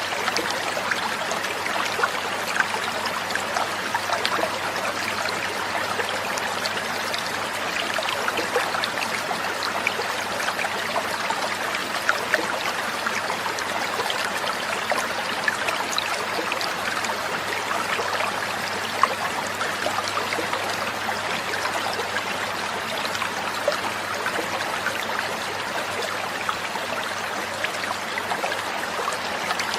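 Gurgling, trickling water running steadily, with small splashy ticks throughout.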